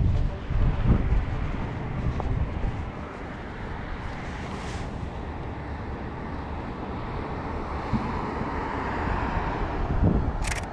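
Wind buffeting the microphone, with a passing car's tyre noise swelling toward the end. Near the end, a sharp double click from the shutter of a Canon 5D Mark III DSLR.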